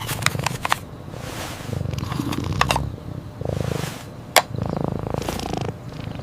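Sharp clicks, several of them, with soft rustling swells in between; the sharpest click comes a little after four seconds in.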